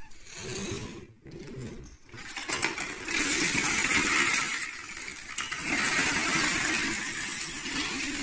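Plastic Lego bricks clattering as a storage box full of them is tipped over and emptied onto a wooden floor. It starts with some rustling and shuffling, then from about two and a half seconds in becomes a dense pour of many small clicks and rattles. The pour eases briefly around the middle and picks up again.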